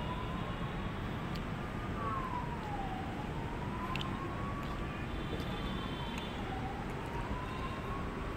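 A siren wailing, its pitch rising slowly and then falling quickly, over and over about every three and a half seconds, faint under a steady low rumble. A few light clicks come through as well.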